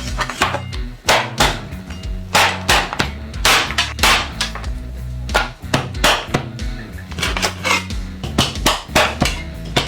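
Background music with a low bass line that steps between notes, under many sharp knocks.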